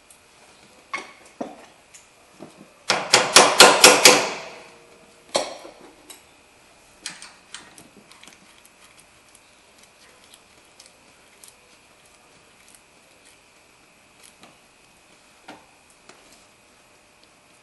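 Metal parts of a car's front suspension being handled while the upper ball joint and control-arm bolts are refitted: scattered light clicks and knocks. About three seconds in, a quick run of about seven sharp metallic raps lasts about a second.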